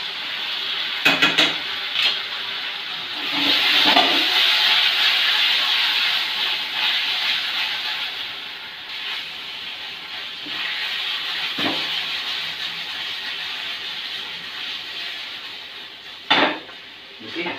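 Chicken 65 sizzling in a kadai over a high gas flame just after the sauces go in, with a spatula stirring and knocking against the pan a few times. The sizzle swells a few seconds in, then slowly dies down.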